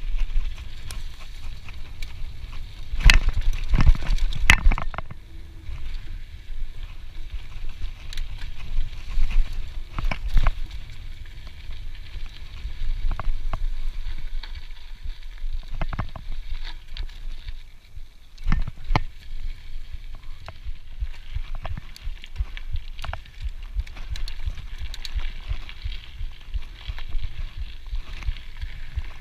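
Scott Genius mountain bike rolling fast over dirt singletrack: a steady tyre rumble full of rattles and knocks from the bike over roots and bumps. The heaviest jolts come about three to five seconds in, and again around ten and nineteen seconds.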